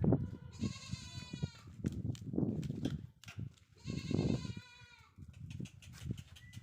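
Goat bleating twice, a short wavering call about a second in and another about four seconds in, over low thuds.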